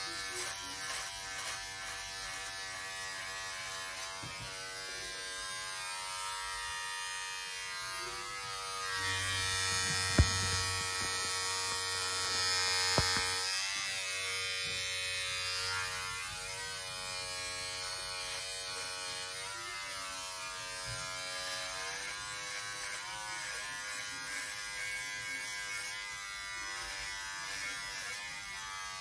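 Electric shaver running with a steady motor hum. From about nine to sixteen seconds in, it grows louder and hissier and its pitch wavers. Two sharp clicks come about ten and thirteen seconds in.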